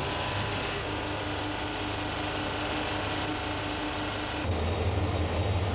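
Steady drone of a diesel train engine running, with a few level tones in it. About four and a half seconds in it changes abruptly to a louder, deeper hum.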